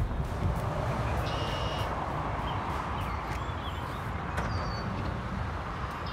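Outdoor ambience: a steady low rumble, with a bird calling about a second in and again at the end, and a few faint chirps between.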